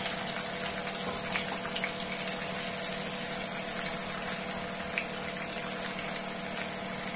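Sliced onions frying in hot oil in a wok, a steady sizzle as they are stirred, over a steady low mechanical hum.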